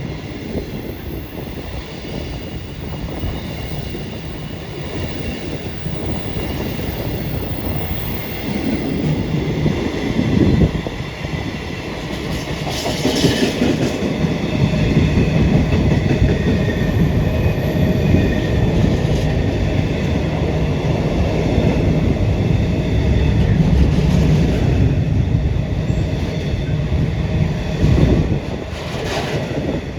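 Train running over the crossover: a steady low rumble with squealing wheel tones, and loud clanks about 13 seconds in and again near the end.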